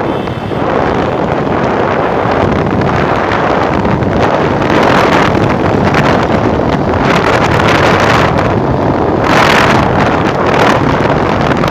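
Heavy wind buffeting the microphone of a motorcycle riding at speed, rising and falling in gusts, with the bike's running and road noise underneath.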